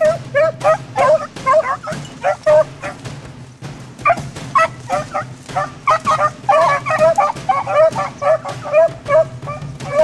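Beagles baying in rapid short barks while running a rabbit's scent, with several voices overlapping at different pitches. The barking thins out briefly about three to four seconds in, then picks up thick again.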